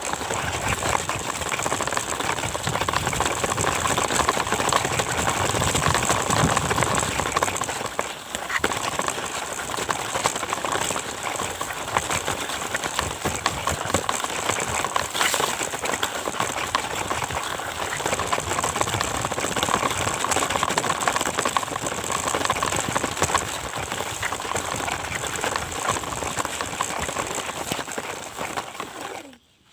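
Truck engine running, a loud, steady noise with no clear pitch that cuts in and out abruptly.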